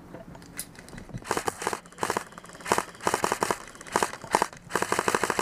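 Airsoft rifle fired in several short bursts of rapid clicking shots, starting about a second in.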